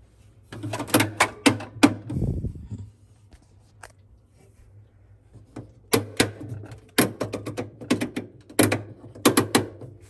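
The plastic temperature control dial inside a Frigidaire refrigerator being turned by hand, giving a run of sharp clicks and knocks about a second in and another from about six seconds in.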